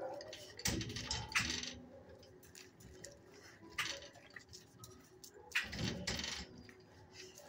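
A dog eating, with a handful of scattered crunching and clicking sounds from its food.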